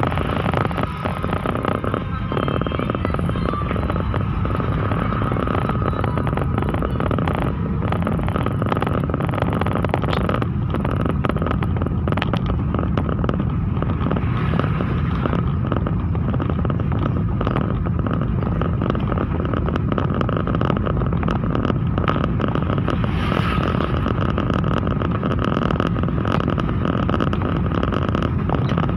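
Suzuki New Carry pickup truck driving along at a steady pace, a continuous hum of engine and road noise.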